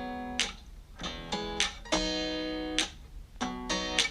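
Acoustic guitar strumming chords in a steady rhythm, each strum ringing on as a held chord, with no singing.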